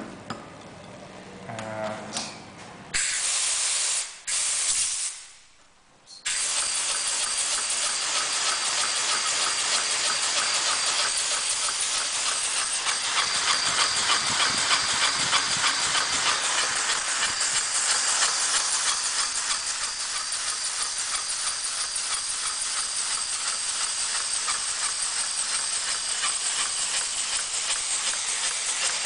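Compressed air hissing through a small model steam engine's cylinder and valve as it is run on air: two short bursts of air about three and five seconds in, then a continuous hiss with a fast, even pulsing from the exhaust strokes.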